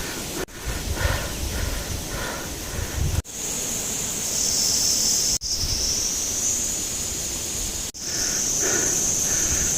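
Wind buffeting the microphone with a hiker's footsteps along a mountain trail. From about three seconds in, a steady high-pitched buzz runs underneath, and the sound breaks off abruptly for an instant three times.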